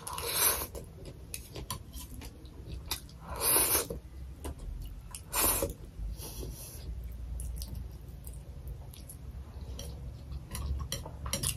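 Fried noodles slurped up with three loud slurps about two seconds apart, with close-miked chewing and small wet mouth clicks between them.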